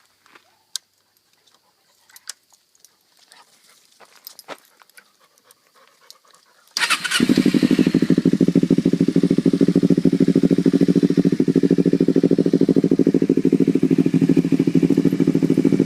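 A few light clicks, then midway through a 2009 Kawasaki Ninja 250's parallel-twin engine is started and settles straight into a steady idle through a Danmoto conical exhaust with its baffle in.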